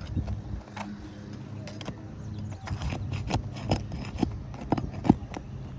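Hand tools working on asphalt roof shingles: a run of irregular sharp taps and knocks that grows busier about halfway through, over a low steady rumble.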